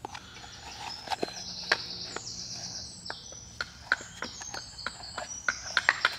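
Stiff sweet chestnut bark being handled and folded into a container on a wooden stump: scattered light clicks, crackles and knocks.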